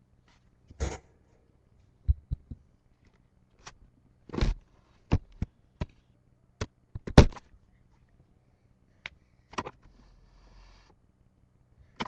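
A dozen or so short, sharp knocks and thumps at irregular intervals, the loudest about a second in, midway and a little past the middle, with quiet between them.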